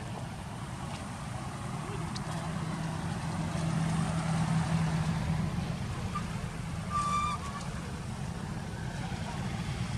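Road traffic passing: a continuous low rumble, with one vehicle's steady engine hum swelling about four to five seconds in. A brief high-pitched tone sounds about seven seconds in.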